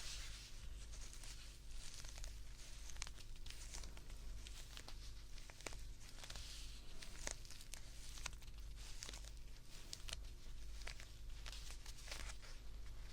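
Close-miked rustling, crinkling and scratching from a plush teddy bear being handled, with many small clicks scattered throughout.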